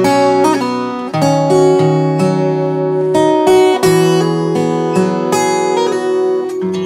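Background music on acoustic guitar, a steady run of plucked and strummed notes.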